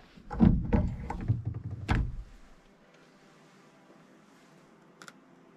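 A quick run of knocks and thumps over about two seconds, then a single sharp click near the end.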